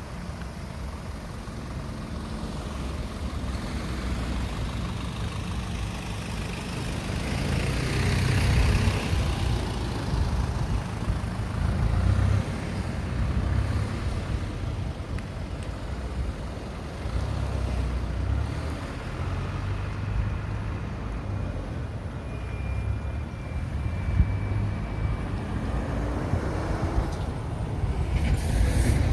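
Road traffic driving past: engine rumble and tyre noise from cars and trucks, swelling as each vehicle passes, loudest about eight seconds in. A short hiss comes near the end.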